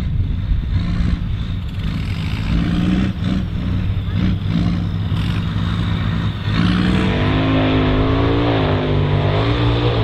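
John Deere 4240's six-cylinder turbo diesel engine running under heavy load while pulling a plough. About six and a half seconds in, the engine note becomes louder and its pitch wavers up and down as it works.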